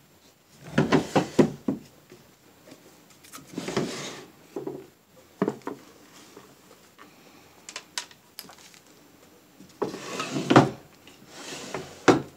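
Rummaging and handling noise: a run of knocks, clicks and rubbing as objects are moved about, coming in several separate bursts with short quiet gaps between.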